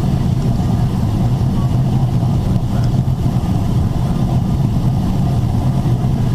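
Steady cabin noise inside a Boeing 777-300ER in descent: the constant rush of airflow over the fuselage and the drone of its GE90 turbofan engines, with a strong low hum underneath.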